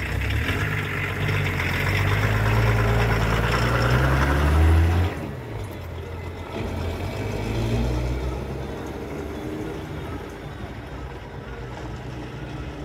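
Pinzgauer 716 4x4 driving past close by: its engine grows louder up to about five seconds in, then drops sharply as it goes past. It picks up briefly once more and fades as the vehicle pulls away.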